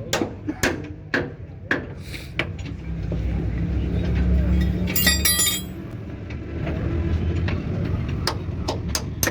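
Sharp metal knocks, about two a second, then a low running engine rumble that swells through the middle with a short clatter of metal clinks about five seconds in; the knocks return near the end.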